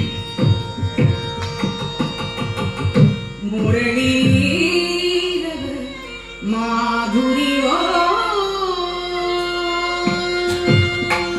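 Carnatic music: a woman singing in raga Sarasangi with violin following her and mridangam accompaniment, over a steady drone. Mridangam strokes for the first three seconds, then a long phrase of gliding sung and bowed notes with the drum mostly quiet, and the mridangam strokes coming back near the end.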